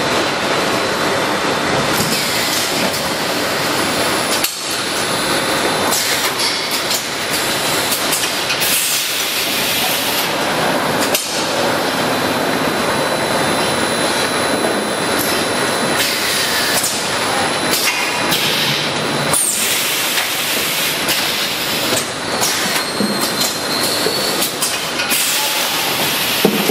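Automatic bag-placing and filling machine running: a steady loud mechanical din, broken every few seconds by short hisses from its pneumatic grippers and cylinders as they take up and clamp the bags.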